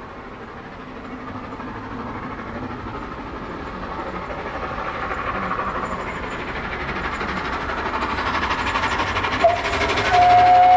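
Three-cylinder Peppercorn A1 Pacific steam locomotive 60163 Tornado working up a steep gradient, its exhaust growing steadily louder as it approaches. Near the end comes a brief toot, then its steam whistle sounds a long held note.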